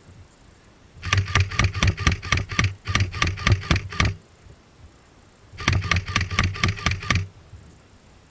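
Airsoft electric gun firing two rapid full-auto strings of shots over its motor's hum: a long one of about three seconds starting about a second in, then a shorter one of about a second and a half.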